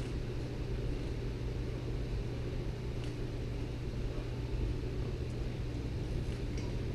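Steady low rumble and hum of a large hall's background noise, with a couple of faint ticks.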